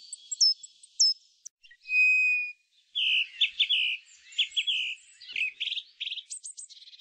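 Several birds calling: a quick series of high chirps and downward sweeps, one held whistle about two seconds in, and rapid repeated trills toward the end.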